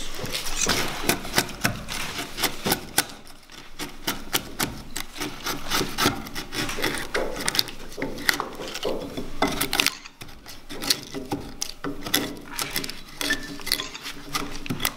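Long wood chisel cutting and paring out a mortise in a timber, in quick, irregular strokes of steel scraping and biting into wood.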